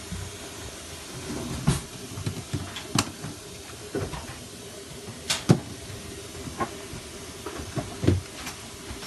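Household handling noises: about seven sharp knocks and clicks at irregular intervals, over a steady background hiss.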